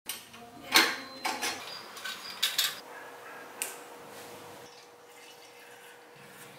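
Small metal parts of a model steam beam engine clinking and clicking as they are handled and fitted together: a handful of sharp clicks in the first four seconds, the loudest about a second in, then quieter.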